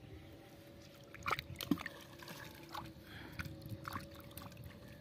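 Faint drips and small splashes of river water as a hand lowers a small catfish into the shallows and lets it go, with a few light ticks scattered through.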